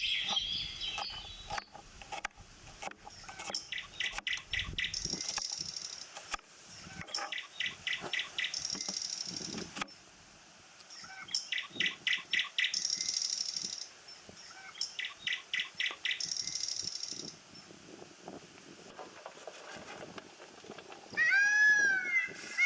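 A songbird repeating the same short phrase about every four seconds: a quick run of rapid notes followed by a buzzy note about a second long. Scattered light clicks come between, and near the end a cat meows twice.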